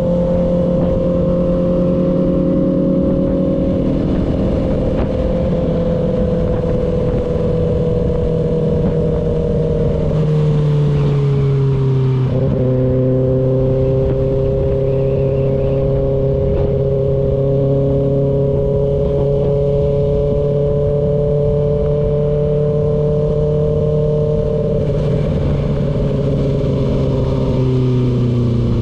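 Kawasaki ZX-6R's inline-four engine running at steady cruising revs under way. Its pitch eases down about ten seconds in, breaks briefly a little later, then holds level and drops again near the end.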